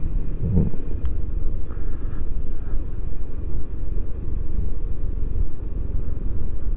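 Steady low rumble of an automatic scooter being ridden down a steep road, with engine, tyre and wind noise on the microphone.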